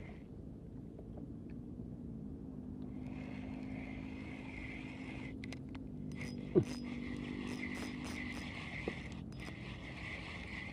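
Small 1000-size spinning reel being cranked, a steady whir that repeats with each turn of the handle, over a steady low engine-like hum. A brief sharp squeak with quickly falling pitch stands out about six and a half seconds in.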